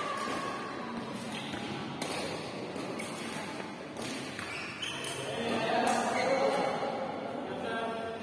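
Indistinct voices talking, with several sharp knocks or hits at irregular intervals.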